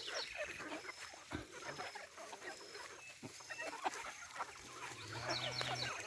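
A flock of Embrapa-breed hens clucking and calling around their feed, in many short scattered calls, with a louder drawn-out call near the end.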